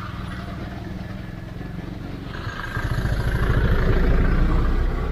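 Motorcycle engine running at low speed, heard from the rider's seat. About two and a half seconds in it grows louder, with a rougher rumble and a hiss added.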